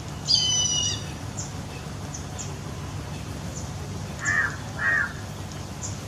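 Gulls calling: a high, thin squeal lasting about half a second near the start, then two harsh calls in quick succession about four seconds in, with faint short cries scattered between, over a steady low hum.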